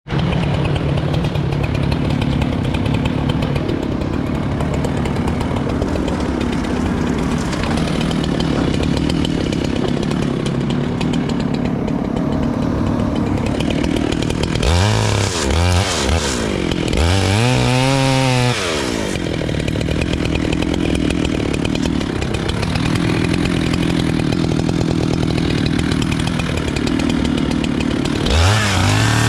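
Chainsaw running steadily under load as it cuts into a tree, its engine revved up and down in quick swoops about halfway through and again near the end.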